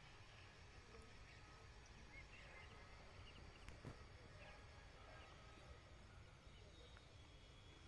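Near silence with faint, scattered bird chirps and one soft click about four seconds in.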